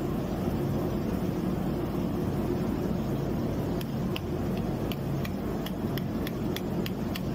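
Light metallic taps and clicks, about a dozen from about four seconds in, as a screwdriver and hammer work at the jammed gearbox of a handwheel butterfly valve, over a steady low machinery hum.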